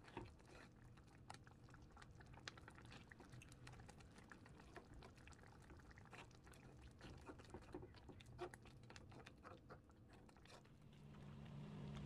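Thick chopped-garlic sauce bubbling and popping in a pan as it simmers and is stirred with a wooden spatula, with faint, irregular crackles and small pops throughout. It is being reduced to a jam-like thickness.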